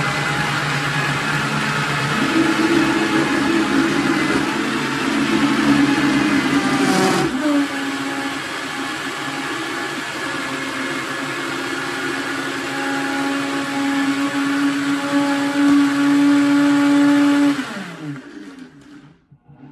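High-speed countertop blender running, blending almonds and coconut meat with coconut water into a thick mix. Its pitch steps down about seven seconds in, and near the end the motor winds down to a stop.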